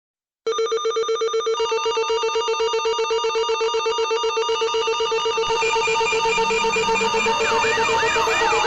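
Electronic alarm that starts abruptly about half a second in: a rapidly pulsing ringing tone, about ten pulses a second, with further tones layered on. Near the end a siren whoop joins, sweeping upward about three times a second.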